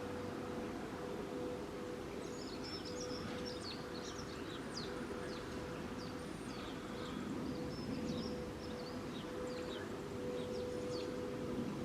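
An unexplained steady tone, swelling and dipping slightly but never stopping, over a wash of outdoor background noise. Small birds chirp quickly and repeatedly from about two seconds in.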